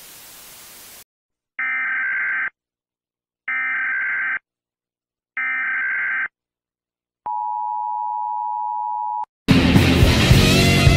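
Emergency Alert System-style signal: three buzzy bursts of digital data tones, each just under a second and evenly spaced, then a steady two-tone attention signal for about two seconds. Music cuts in near the end.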